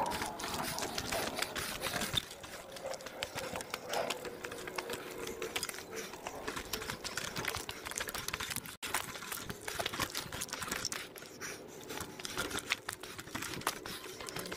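Mountain bike rolling over loose gravel: rapid clicking and rattling from the bike and tyres crunching on stones. A faint falling tone fades out in the first few seconds.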